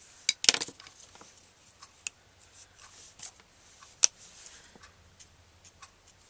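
Plastic Copic alcohol markers being uncapped, recapped and put down while colours are swapped: a few sharp clicks, the loudest about half a second in, with lighter taps between.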